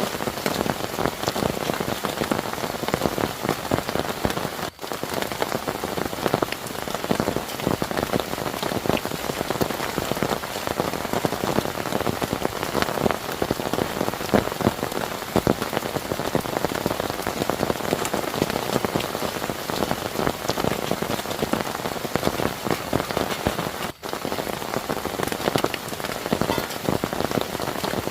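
Heavy rain falling steadily, a dense patter of countless drop strikes. The sound cuts out for an instant twice, about five seconds in and near the end.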